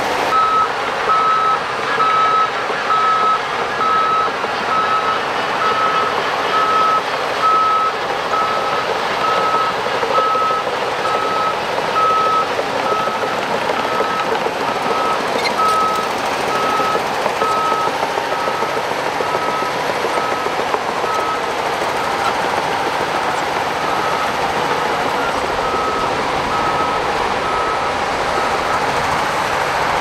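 Shantui DH17 crawler bulldozer running with its reverse alarm sounding: a steady train of evenly spaced single-pitch beeps over the continuous noise of the diesel engine and tracks.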